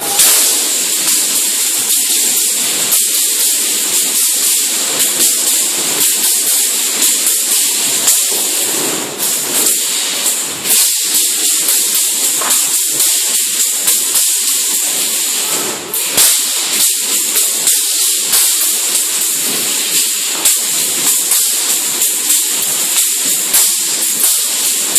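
Loud music, harsh and hissy, with rapid metallic percussion strokes like cymbals or jingles, starting abruptly.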